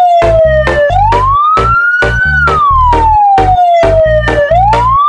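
A wailing siren rises and falls slowly, about once every three and a half seconds, over a loud music track with a fast, steady beat and bass notes.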